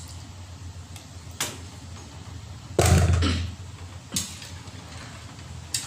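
Kitchen cookware being handled: a few sharp clicks of utensils against a pan, and one loud heavy knock about three seconds in, over a steady low hum.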